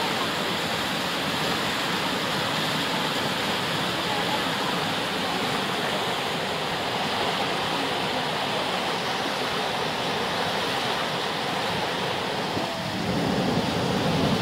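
Steady rush of tidal rapids: the turbulent whitewater of a standing wave in a fast tidal current, getting a little louder and deeper near the end.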